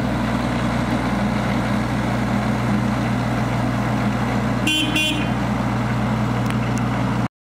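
JCB 8014 CTS mini excavator's diesel engine running steadily, with two short horn toots in quick succession about five seconds in.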